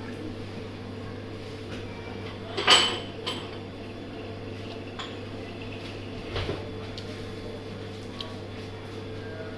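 Dishes and cutlery clinking during a meal: one sharp clink about two and a half seconds in, then a few softer clicks and knocks, over a steady low hum.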